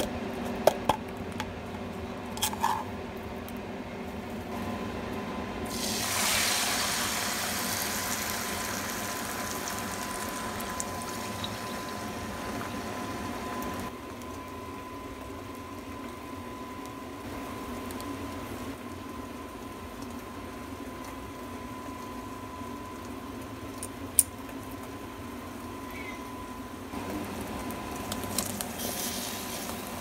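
Kitchen cooking sounds: bread slices frying in a pan with a steady hiss, loudest in the first half, then quieter handling as ketchup is squeezed onto toast. A faint steady tone runs under most of it, with a few light clicks.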